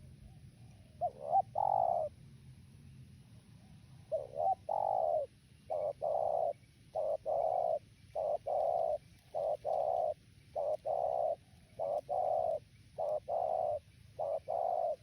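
Spotted dove (tekukur) cooing. A short phrase of coos comes about a second in, then from about four seconds a long series of repeated low coos, roughly one a second.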